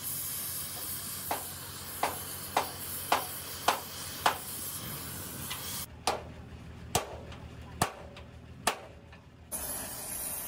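Hammer blows on steel, each with a short ring, over a steady hiss: first a run of six strikes about two a second, then four slower strikes with the hiss dropping away, and the hiss returning near the end.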